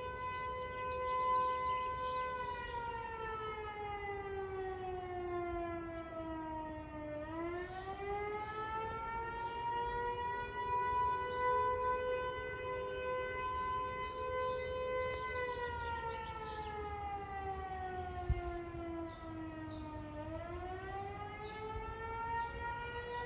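Two civil-defense sirens, the Mastic FS Eclipse 8 and the Mastic Beach Modulator 4016, sounding together for an emergency call in a slow wail. The steady tone twice slides down in pitch over several seconds, rises back and holds again. A single brief thump is heard about two-thirds of the way through.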